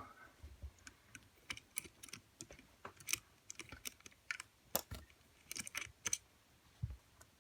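Scattered light clicks and taps at irregular intervals, with a couple of duller knocks, from handling a just-picked four-lever Squire 660 steel lever lock and its homemade tension tool and wire pick.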